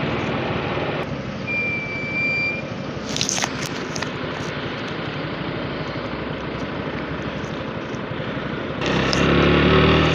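Motorcycle in city traffic: wind and engine noise while moving, then quieter as it stops and idles. Near the end the engine gets louder as it pulls away. A brief high-pitched tone sounds about two seconds in.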